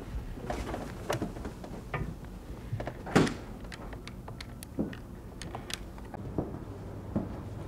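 Footsteps and an office swing door being pushed open, with a heavy knock about three seconds in, then a few sharp clicks as the door swings, over a low steady hum.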